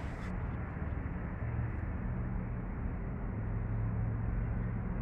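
Steady outdoor background noise with a low hum underneath, growing slightly louder toward the end.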